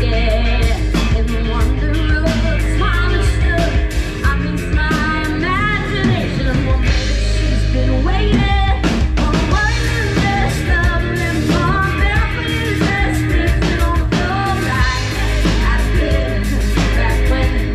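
Live band playing through a PA system: a woman singing lead over drum kit and guitars.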